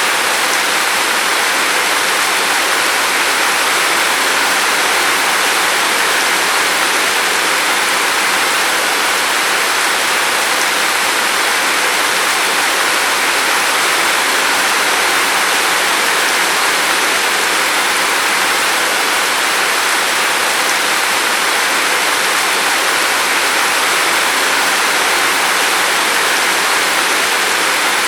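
Steady rain falling without a break: a dense, even hiss of rain with no single drops or thunder standing out.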